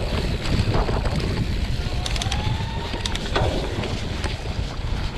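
Wind buffeting an action camera's microphone as a mountain bike rides a dirt trail, with scattered clicks and rattles from the bike over the ground.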